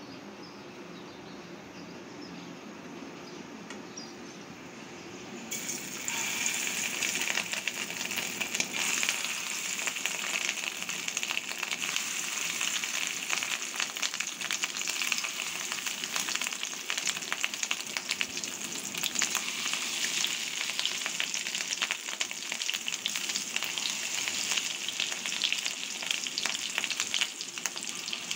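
Fish roe fritters deep-frying in a pan of hot oil, sizzling with a dense crackle of small pops. The sizzle starts suddenly about five seconds in, after a quieter stretch, and stays steady from then on.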